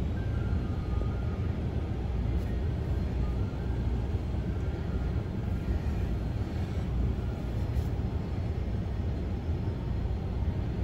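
Car cabin rumble: a steady low hum of the filming car's engine and surroundings, heard from inside the vehicle.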